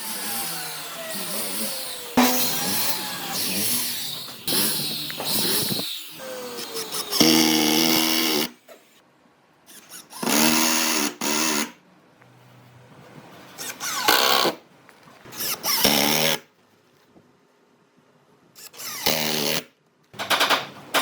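Handheld power tool running in repeated short bursts, on and off, its pitch falling as the motor slows down after the first runs.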